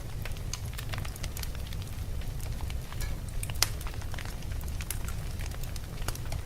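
Wood fire crackling, with irregular sharp pops over a steady low rumble; one louder pop about three and a half seconds in.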